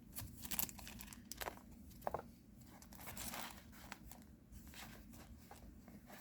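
Faint crinkling and tearing of a trading-card booster pack's wrapper being handled and opened, with scattered small clicks.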